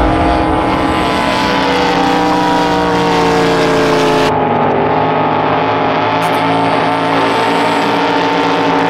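Drag boat engine running steadily, its pitch sinking slowly over the first few seconds, turning duller about four seconds in.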